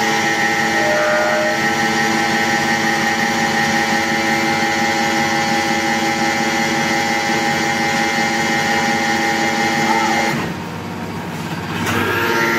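Hydraulic concrete-pile rig's power unit running under load with a steady whine. It drops off a little past ten seconds in and picks up again about a second and a half later.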